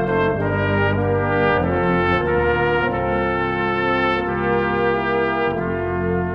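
Brass ensemble of trumpet, French horn, trombone and tuba playing a slow hymn in sustained chords. The tuba carries the bass, and the chords change about every half-second to a second.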